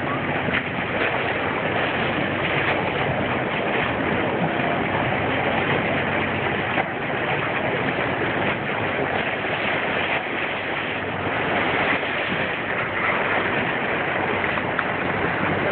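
A moving boat's bow wave rushing and splashing along the hull: a steady wash of water noise, with the boat running under way beneath it.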